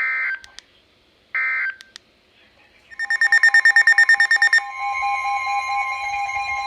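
Emergency Alert System tones: two short screechy digital data bursts, the end-of-message code closing one warning, then about three seconds in a rapidly pulsing electronic tone that becomes a steady two-tone alert signal, opening the next warning.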